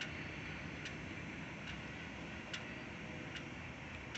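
A sharp, regular ticking, about one tick every 0.85 seconds, over a steady low rumble.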